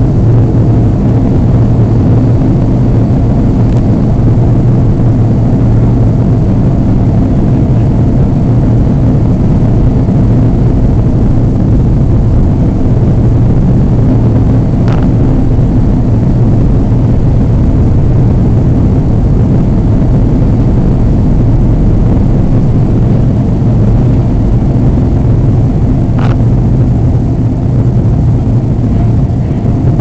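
Airliner engines and cabin noise heard from inside the passenger cabin: a loud, steady low hum, with two faint ticks about halfway and near the end.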